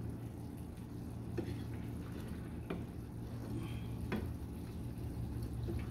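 Metal spoon scooping pork and nopal stew from a frying pan into a ceramic bowl, with about four light clicks of the spoon against the pan over a steady low hum.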